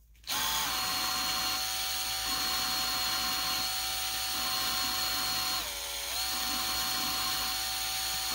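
Power drill running at low speed, spinning a suction-cup lapping tool that turns an intake valve against its seat with lapping compound. It gives a steady motor whine that starts just after the beginning and dips in pitch briefly about six seconds in before picking back up.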